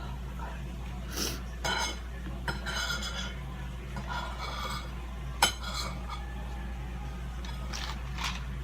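Cutlery clinking and scraping against a plate in a few separate touches, with one sharp clink about five and a half seconds in, over a steady low hum.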